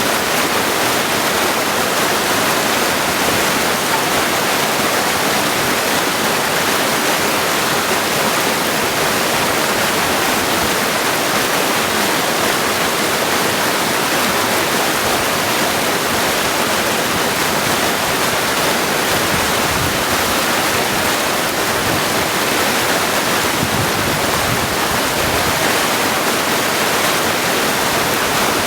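Mountain creek water rushing and splashing over rocks, a steady loud flow.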